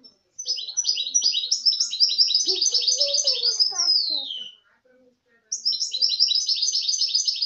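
Goldfinch × canary hybrid (mule) singing: a fast run of high twittering notes that ends in a falling glide about four seconds in, then a second run beginning about a second later.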